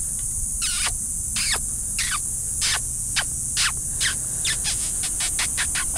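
A bird singing a series of clear whistles, each sliding steeply down in pitch, the notes coming faster and faster toward the end. Insects buzz steadily and high-pitched behind it.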